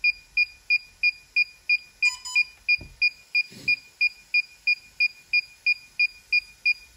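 DJI Remote Controller 2 beeping rapidly and evenly, about three short high beeps a second, while it is in pairing mode searching for the drone. About two seconds in, a different, lower double beep sounds.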